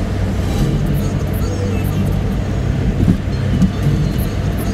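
Steady engine and road noise inside a moving van at speed, a continuous low hum.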